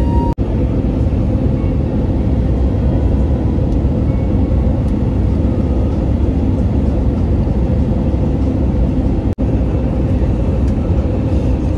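Jet airliner cabin noise: a loud, steady low rumble of engines and airflow heard from inside the cabin, broken by two brief dropouts.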